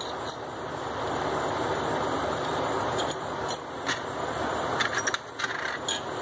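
Small steel lock washers clinking now and then as they are dropped onto the steering-arm studs of a steering knuckle. Under them runs a steady mechanical rumble like a motor running, which grows louder over the first couple of seconds.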